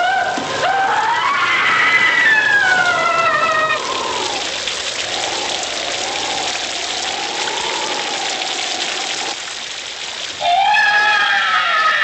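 Haunted-house sound effects: a steady hiss of rain and storm wind under eerie, wavering moans that glide up and down in pitch. A louder wailing comes in about ten and a half seconds in.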